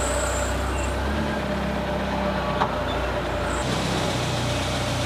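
A machine running steadily with a low hum, with one sharp click about two and a half seconds in.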